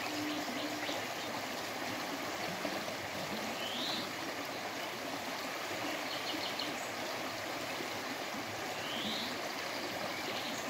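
Swollen stream flowing steadily, a continuous rushing of water, with a few faint, short, high-pitched chirps over it.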